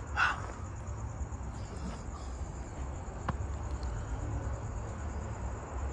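Crickets chirping steadily over a low rumble, with a brief louder sound just after the start and a single sharp click about halfway through.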